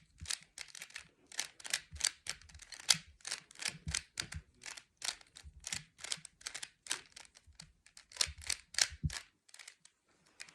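Plastic 3x3 Rubik's Cube being turned by hand, its layers clicking in a quick, uneven run of about three or four turns a second that stops about nine seconds in.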